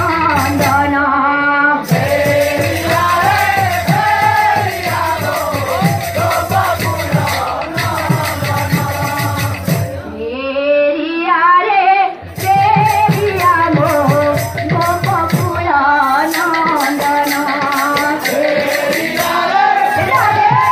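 Women's group singing a devotional kirtan over a steady drumbeat and jingling percussion. The jingling drops out for about two seconds roughly halfway through, then returns.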